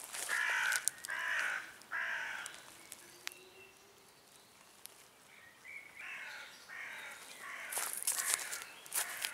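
A crow cawing: three harsh caws in quick succession, a pause, then a second run of several caws from about five and a half seconds in.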